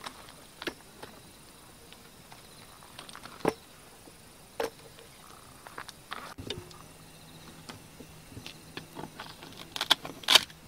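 Scattered clicks and light knocks of folding camp furniture being handled, unfolded and set down on gravel, with a few sharper knocks near the end. A faint low hum sets in about two-thirds of the way through.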